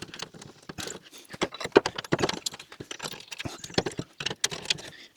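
Small metal hardware clinking and rattling as it is handled and dropped in: a run of irregular sharp clicks and knocks.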